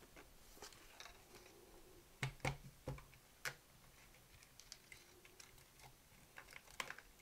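Light clicks and knocks of a Sony TC-120 cassette recorder's chassis and case being handled and fitted together by hand, with a cluster of louder knocks a little over two seconds in and fainter scattered ticks near the end.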